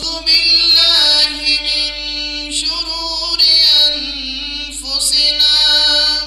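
A man's voice in melodic religious recitation, chanting through a microphone in long held notes with a wavering ornament, in about three phrases that break off near the end.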